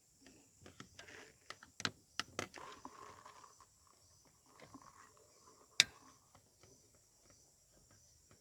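Scattered light clicks and small knocks of hand tools and parts being handled at a car's distributor cap, busiest in the first three seconds, with one sharp click near six seconds in.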